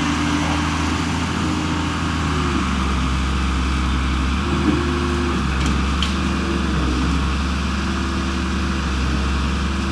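A steady low engine hum, as of a vehicle running, with faint tones that shift in pitch above it.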